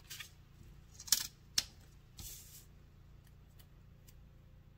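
Hands handling paper planner pages and stickers: two sharp clicks about a second and a second and a half in, then a short paper rustle, and after that only faint light ticks.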